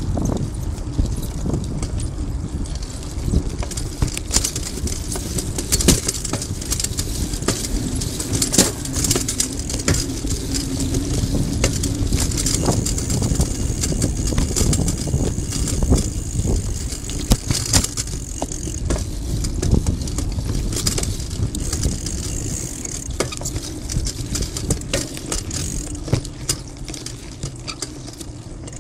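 Bicycle ridden over pavement slabs and kerb edges: a steady low rumble of tyres and wind, broken by frequent irregular clicks and knocks as the wheels hit joints in the paving and the bike rattles.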